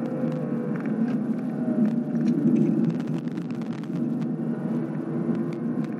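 Supercharged 6.2-litre V8 of a 2016 Cadillac CTS-V under hard track driving, heard from inside the cabin. Its note dips in the first second as the car slows for a corner, then climbs again as the throttle goes back on. Through it run rattling clicks from a loose GoPro mount.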